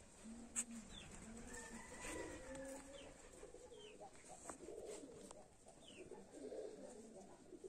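Faint pigeon or dove cooing in short repeated phrases, with a few brief high bird chirps and one sharp click about half a second in.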